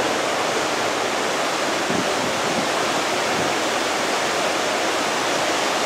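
Steady roar of a derecho's straight-line winds driving heavy rain, with no let-up.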